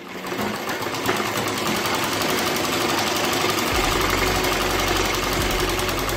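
Domestic sewing machine stitching a seam at a steady, fast pace: a rapid, even run of needle strokes that starts at the very beginning.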